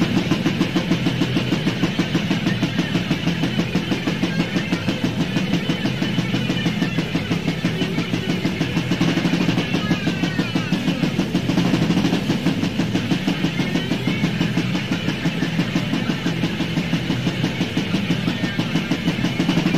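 Lo-fi cassette demo recording of raw death/black metal: heavily distorted guitars over fast, even drumming.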